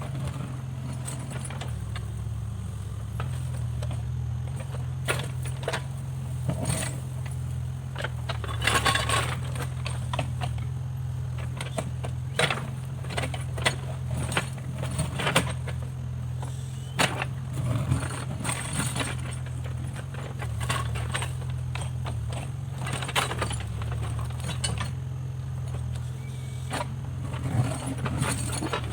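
Backhoe loader's diesel engine running steadily, with frequent sharp metallic clanks and rattles over it.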